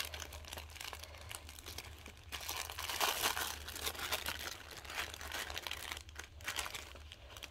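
Thin plastic gift baggie crinkling and rustling as hands untie and open it, loudest about three seconds in.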